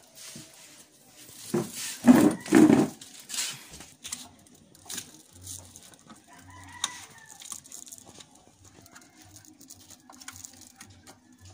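Chickens calling, loudest in a run of calls about one and a half to three seconds in, with a fainter call near the middle. Light clicks and taps of hands working a plastic outlet and lamp sockets sound throughout.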